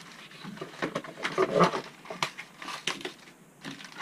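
Paper and cardboard packaging rustling and crinkling as it is handled, with a louder burst of crackling about a second and a half in.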